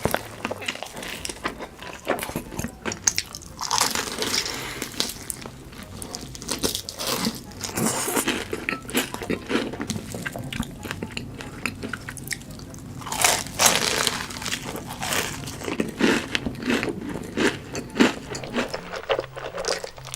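Close-miked crunchy biting and chewing of food, with dense irregular crackles and crunches and a louder run of crunching about two-thirds of the way through.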